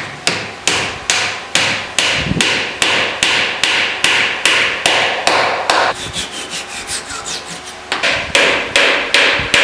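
A mallet drives a glued poplar dowel pin into a tenon joint of a wooden workbench, in a steady series of sharp strikes about two a second. The strikes pause for about two seconds, then start again quickly near the end.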